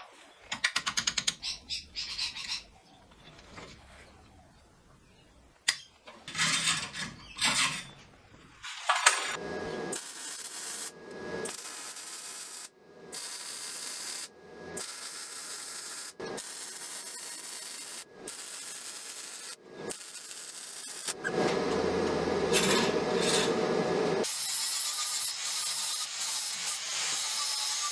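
Rapid clicking near the start, then a MIG welder laying a series of stitch welds on steel angle iron: about six crackling bursts of one to three seconds each, with short pauses between. For the last several seconds an angle grinder runs steadily, grinding down the fresh weld, louder than the welding.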